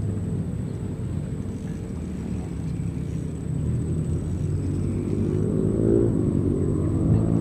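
A motor engine running steadily with a low rumble, getting louder over the last couple of seconds.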